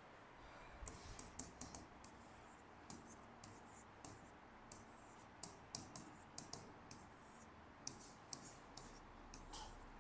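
Faint scratching of a pen writing, in many short, irregular strokes.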